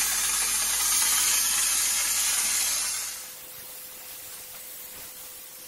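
EZ-Pro texture spray gun spraying drywall texture: a loud, steady hiss of gas and material leaving the nozzle, which drops off sharply about three seconds in to a much fainter hiss.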